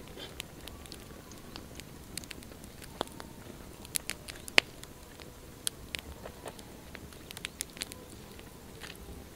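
Small wood campfire crackling, with irregular sharp pops, the loudest about four and a half seconds in.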